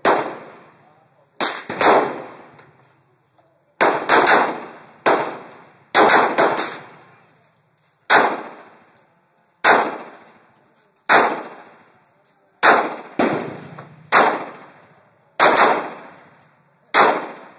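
Glock 19 Gen 4 9mm pistol firing steel-cased Tula 115-grain FMJ ammunition at a slow steady pace, about fifteen sharp shots spaced roughly a second apart, a few in quick pairs, each with a fading echo.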